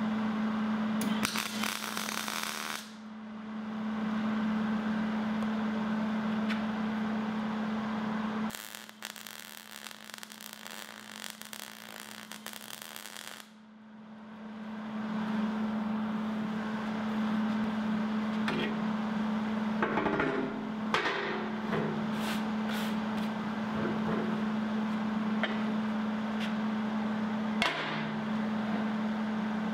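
Arc welding on a steel furniture frame: crackling bursts of the weld arc in two short runs, over a steady low hum. In the second half there are sharp metallic clanks and knocks from the steel parts being handled on the steel welding table.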